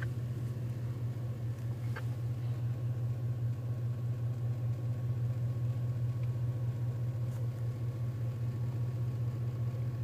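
Steady low rumble of an idling truck engine, heard from inside a truck's cab.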